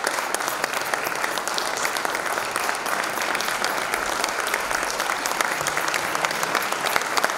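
Concert audience applauding steadily, a dense patter of many hands clapping.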